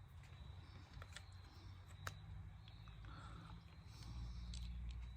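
Faint scattered clicks and taps from hands handling the parts of a 30-amp RV shore power plug, over a low steady hum that grows a little louder near the end.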